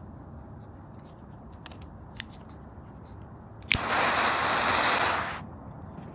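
Butane triple-jet torch lighter fired: a sharp click of the ignition button, then about a second and a half of loud, even jet hiss that stops abruptly.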